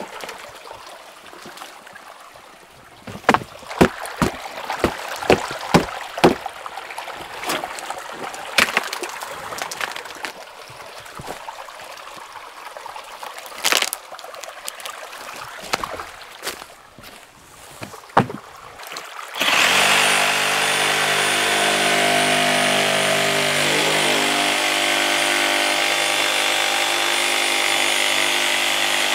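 Scattered sharp clicks and knocks over a faint trickle of water. About two-thirds of the way through, a small engine cuts in abruptly and runs steadily at an even pitch.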